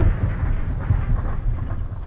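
Low rumble of a large explosion slowly fading, with a few faint crackles.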